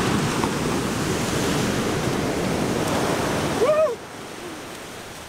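Ocean surf breaking and washing up a sandy beach, a steady loud rush. Near the end a brief high cry rises and falls, and the rush then drops off suddenly to a quieter background.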